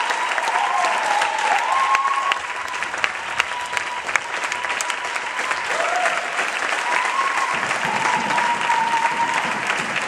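Audience clapping steadily in a curtain-call ovation, with a few voices cheering over the applause.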